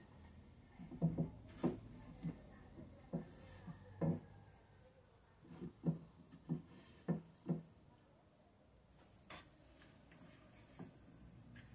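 Irregular dull knocks and thuds of wooden boards being handled and set against each other, about a dozen spread out with a short lull near the end.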